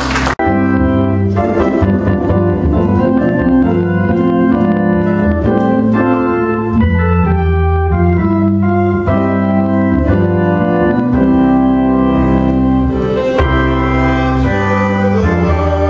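Organ playing slow, held chords that change every second or two, with a brief break about half a second in.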